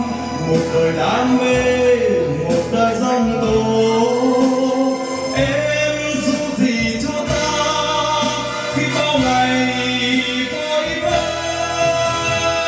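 A man singing a Vietnamese song into a handheld microphone, amplified through the room's sound system, with instrumental accompaniment.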